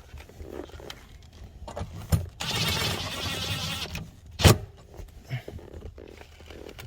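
A socket tool runs the 10 mm bolt in on the dashboard bracket for about a second and a half, with small metal clinks before and after. There is one sharp knock about four and a half seconds in.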